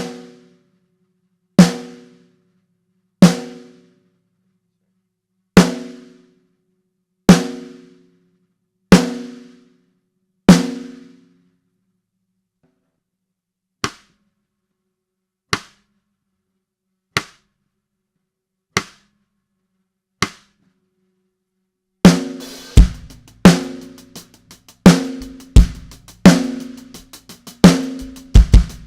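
Ludwig Black Beauty brass snare drum struck with single strokes about a second and a half apart, each ringing out with a clear pitched tone. Then come five short, dry clicks with little ring. About three quarters of the way in, a full drum-kit groove starts, with bass drum under the snare.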